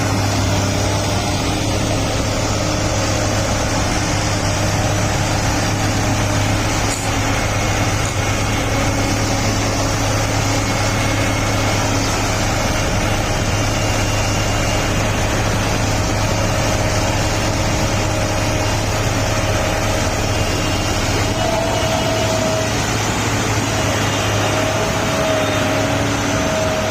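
Large bulldozer's diesel engine running steadily with a constant low drone, with a faint wavering whine over it near the end.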